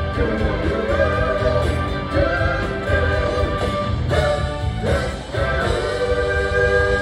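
Live rock band playing, with sung vocal phrases over drums, bass, electric guitar and keyboard, heard from the audience through the PA.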